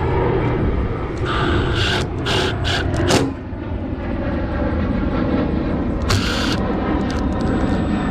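A steady low rumble, with a cluster of short, sharp bursts of noise between about one and three seconds in and another brief burst about six seconds in.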